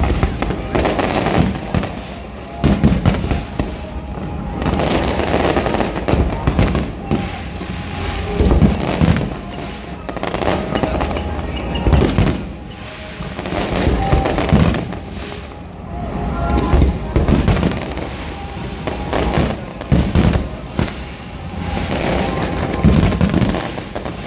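Fireworks display: a continuous barrage of bangs and crackling bursts that swells and eases in waves every two to three seconds.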